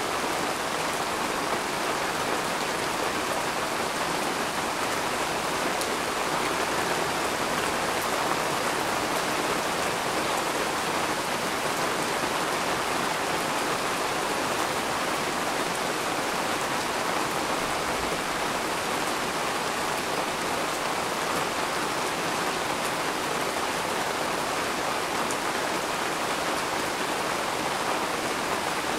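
Steady rain falling, an even hiss with no change in strength.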